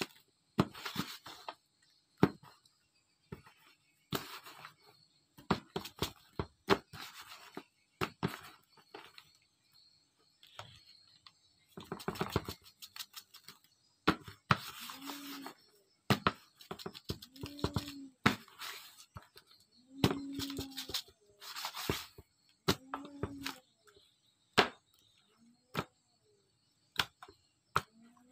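Fish being salted by hand in a basin: a plastic salt packet crinkling, salt sprinkling onto the fish, and wet fish pieces handled and rubbed, in irregular rustles and sharp clicks. From about halfway, a short low tone also repeats every two to three seconds.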